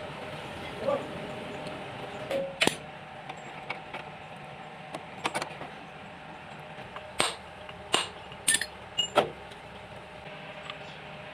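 Metal clinking: about six sharp, separate metallic clinks and knocks from a few seconds in to near the end, typical of tools or parts set down or struck during work on the Kubota engine of a welding machine.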